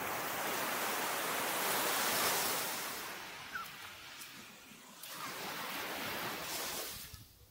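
Small waves breaking and washing up a sandy shore: two swells of surf, the first building over the first couple of seconds, the second a few seconds later, fading near the end.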